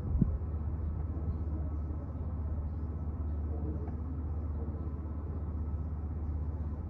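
Steady low background rumble, with one brief thump just after the start.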